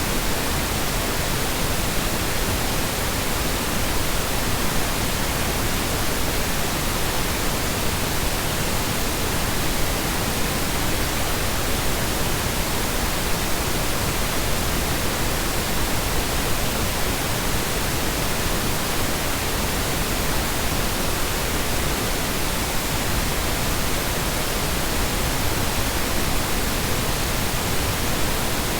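Steady synthetic colour noise for sound masking: an even, unbroken hiss spread across the whole range, with no changes in level.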